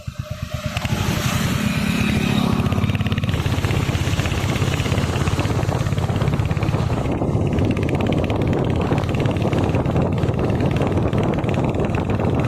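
Royal Enfield Hunter 350's single-cylinder engine idling with an even beat, then revving up about a second in and running steadily as the motorcycle is ridden.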